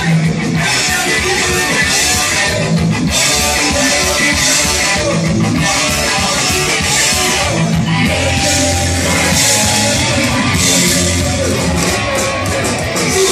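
Punk rock band playing live: electric guitar, bass and drums loud and steady, with the singer's vocals over them.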